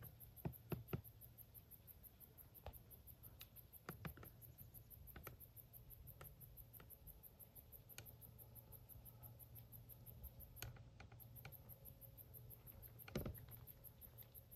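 Near-silent night ambience: a faint, high-pitched insect chirring in a fast, even pulse, like crickets or katydids, with a few scattered soft clicks, the loudest near the end.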